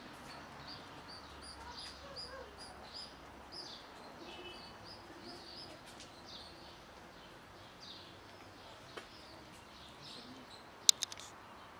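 Small birds chirping in a steady series of short repeated chirps, about two or three a second, over faint outdoor background noise. Near the end a quick burst of three sharp clicks is the loudest sound.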